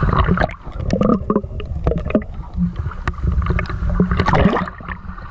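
Seawater sloshing and lapping around a microphone at the waterline as it dips in and out of the surface, with scattered small splashes and a louder splash about four seconds in.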